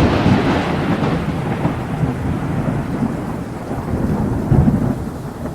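Thunder rolling on after a loud clap, with a steady hiss of rain. The rumble slowly fades, then swells again about four and a half seconds in.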